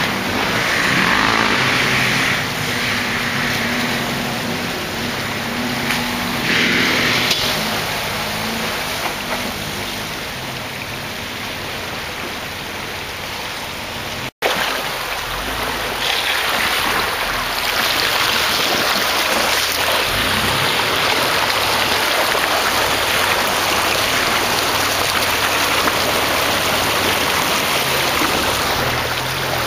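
Jeep Wrangler engine running as the Jeeps wade through a shallow creek, with water sloshing around the wheels. About halfway through, a cut brings a steady rush of splashing water from the front tyre churning through the creek.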